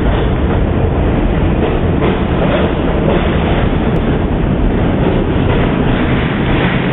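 New York City subway garbage train, a red motor car hauling yellow refuse cars, running past along the platform. Its wheels make a steady, loud noise on the track.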